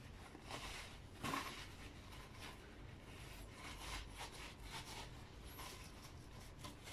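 Faint, irregular rubbing and rustling of a paper towel being worked by hand over a small spray-painted ornament.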